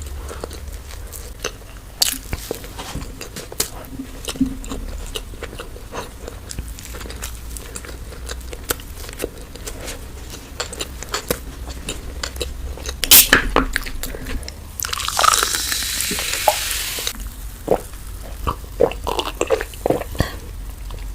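Close-miked eating sounds: crunchy bites and chewing with many small clicks, a louder crunch about 13 seconds in, and a couple of seconds of hissing noise soon after.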